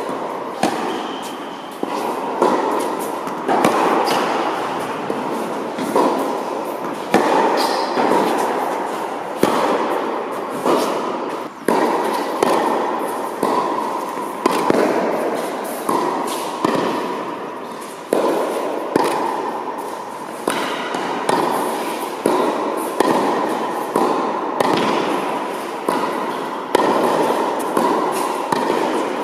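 Tennis balls being hit back and forth in a rally. Sharp racket strikes and court bounces come about once a second, each ringing out in a long echo through the large indoor hall.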